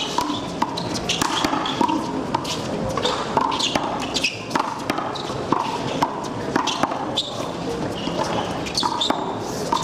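One-wall handball rally: the small rubber ball is struck by hand, hitting the concrete wall and bouncing on the court in a run of sharp, irregular smacks, over the players' running footsteps and shoe scuffs.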